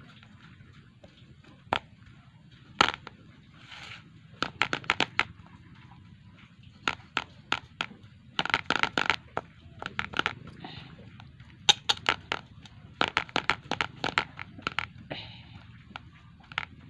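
Hand pressing and patting hot coconut barfi mixture flat in a steel plate, making clusters of sharp clicks and crackles every second or two.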